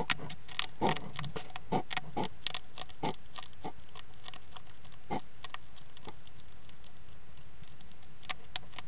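A hedgehog eating dry food at close range, a rapid run of sharp crunches and smacks that thins out after the first few seconds, with a few more near the end. The sound has the thin, hissy quality of a small CCTV microphone.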